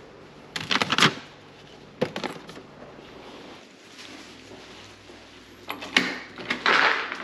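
A few scattered clicks and knocks, then a front door's electronic keypad deadbolt being worked by hand and the door opened near the end.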